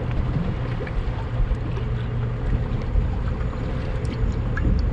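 Steady wind noise on the microphone aboard a small open boat, with a low hum throughout.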